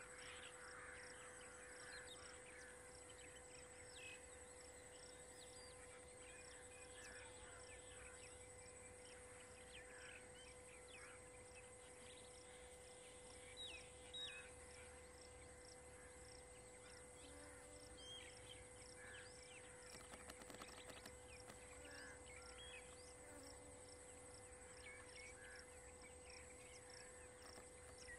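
Faint forest ambience: a steady insect drone with an evenly repeating high pulse, and scattered bird chirps.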